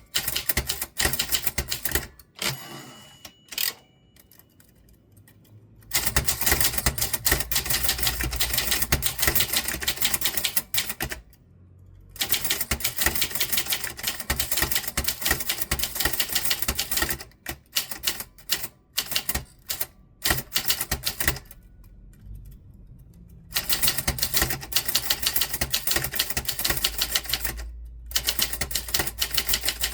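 Typewriter typed on quickly: keys strike in long, rapid runs broken by short pauses. A brief ringing tone sounds about three seconds in.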